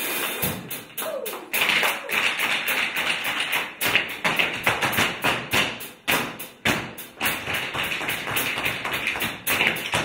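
Tap shoes striking a stage floor in a quick, uneven run of taps, several a second, with a few louder strikes among them.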